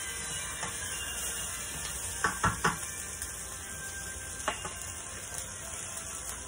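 Chicken breast sizzling steadily in a hot skillet, with three quick knocks about two seconds in and one more a couple of seconds later.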